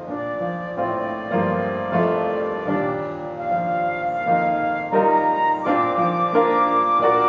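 Instrumental music: a held melody line over sustained chords, the notes changing every half second to a second.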